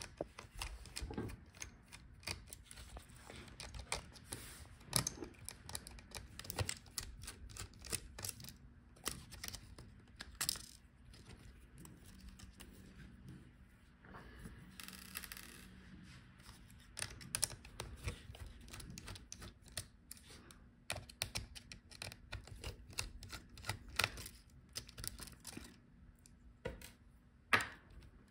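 Scattered light clicks and taps of a precision screwdriver working small screws out of the metal brackets over a laptop's flat display cables, with small parts being handled and set down. There is a brief scraping rustle about halfway through.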